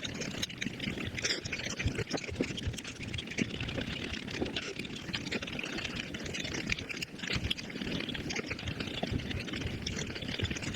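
Eating sounds played at five times speed: a dense, unbroken run of quick chewing and mouth clicks.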